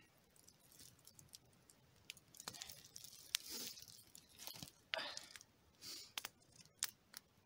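Faint rustling and tearing as a piece of smoked jerky is taken from the rack and pulled apart by hand, with scattered sharp snaps from a small wood campfire.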